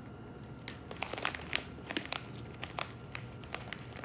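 Plastic snack bag crinkling in irregular crackles as it is handled.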